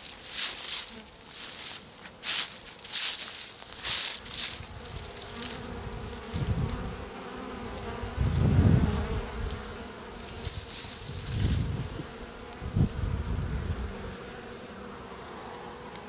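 Honeybees buzzing as they fly close past the hive entrance, the buzz swelling and fading several times in the second half over a faint steady hum. In the first few seconds there are short bursts of rustling hiss.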